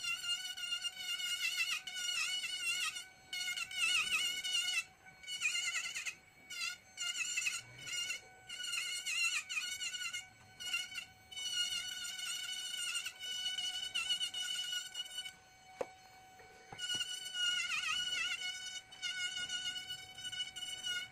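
Small high-speed electric rotary carving tool whining at a high pitch as its bit cuts into ngọc am (Fokienia) wood. The pitch wavers and dips under load in repeated short passes, and the motor spins on freely in between.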